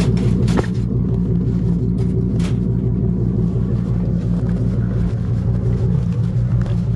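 Ford Excursion's engine running steadily with a low rumble, with a couple of faint clicks in the first few seconds.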